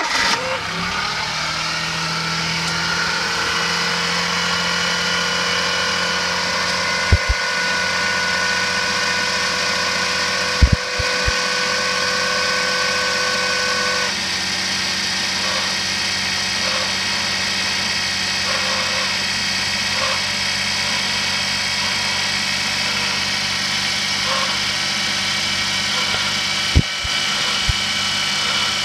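Suzuki Jimny JA22W's 660 cc three-cylinder engine idling, with an abnormal noise from the accessory belt tensioner: a steady high tone over the engine that stops about halfway. A few short knocks are heard, three of them.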